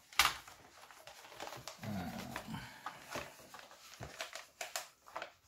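Vacuum-seal plastic film rustling and crinkling as it is laid into a FoodSaver vacuum sealer, with a sharp click at the start and a few lighter clicks and taps of hands on the machine near the end.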